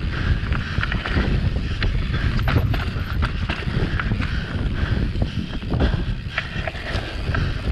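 Mountain bike descending a dirt singletrack at speed: wind buffeting the microphone with a steady low rumble, tyres running over dirt and stones, and the bike rattling in many short, sharp clicks.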